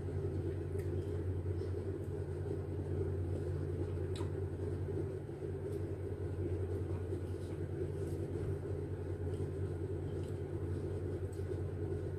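A steady low hum, with a few faint short clicks over it.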